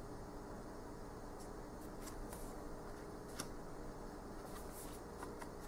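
Tarot cards being handled: faint slides and light taps of smooth cardstock as the cards are moved and laid down, starting about a second and a half in, over steady background noise.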